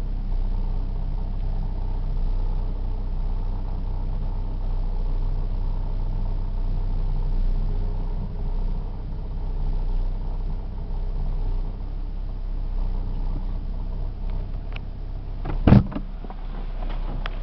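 Daewoo Lanos car running with a steady engine drone, and one sharp, loud clunk near the end. The car has an extraneous noise that its owner is trying to capture.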